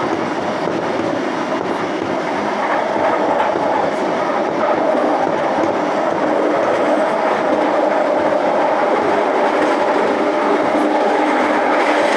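Scarborough RT (UTDC ICTS Mark I) train running along the track: a steady rumble of steel wheels on rail with a light clickety-clack, growing a little louder about four seconds in.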